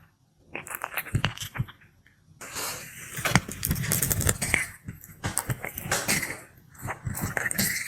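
Sulcata tortoise biting and chewing its food: a run of crisp crunches and clicks, thickest from about two and a half seconds in.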